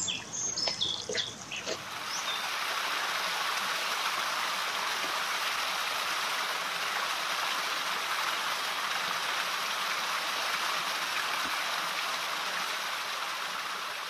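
A small stream splashing down a little rocky cascade, a steady rush of running water that comes in about two seconds in. A few bird chirps sound in the first two seconds.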